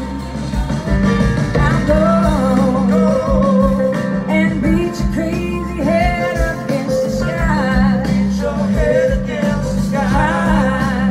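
Live band music: a woman singing over guitar and a steady held low note.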